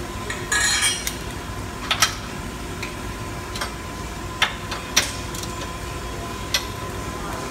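Scattered sharp metal clicks and clinks, about nine in all, from hand tools and bolts knocking against a steel front lower tie bar and the car's subframe as it is fitted and tightened with a ratchet wrench. A brief hissy rustle comes about half a second in, over a steady workshop hum with a faint constant tone.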